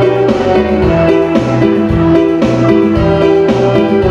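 Instrumental music accompanying an Acehnese creative dance, with held melody notes over a regular percussive beat.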